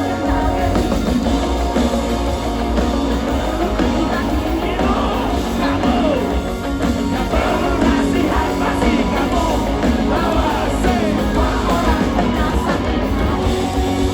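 A live band playing loud rock music with a singer.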